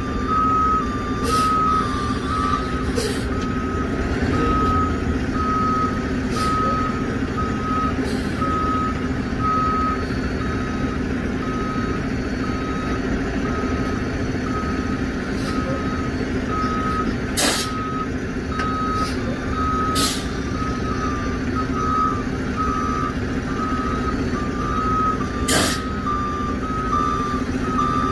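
Semi truck's reversing alarm beeping in a steady even series over the diesel engine running, as it manoeuvres a flatbed trailer at a loading dock. A few short sharp noises cut through in the second half.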